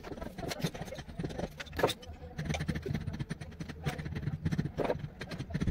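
White plastic water pipe being handled and pushed into a wall chase: scattered light clicks and scrapes over a low background hum.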